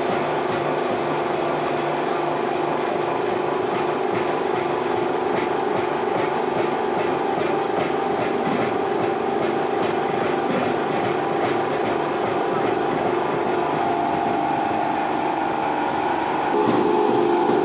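Charcoal briquette extruder running steadily on a test run, its electric motor and drive giving a constant hum. A little before the end it grows slightly louder and its pitch steps up.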